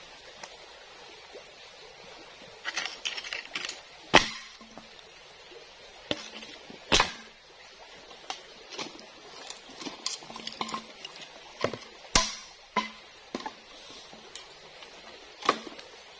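Footsteps in sandals over loose stones and dry bamboo leaves, with irregular sharp clicks and knocks of hard objects against stone. The loudest knocks come about four, seven and twelve seconds in.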